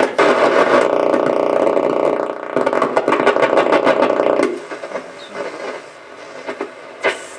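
Portable boombox radio putting out loud static and crackle while being tuned between stations. About four and a half seconds in it drops to a quieter hiss, and there is a sharp click near the end.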